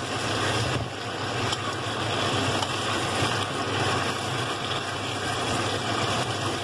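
Roasted pork and Chinese kale sizzling in a wok with a steady hiss, as a spatula stirs and scrapes through the food.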